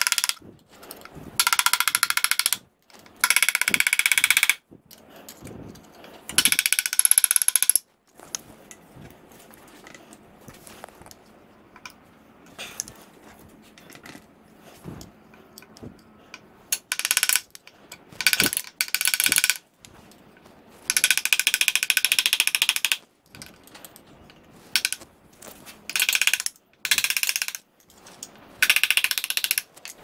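Quick metal-on-metal tapping in about ten short bursts with pauses between: a screwdriver and a 17 mm wrench are tapping on the cast aluminium motor cover of a Bosch Brute jackhammer to loosen it.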